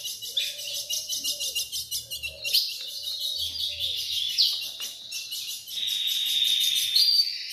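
Several caged songbirds chirping and trilling, with rapid high notes overlapping throughout and a longer buzzy note near the end.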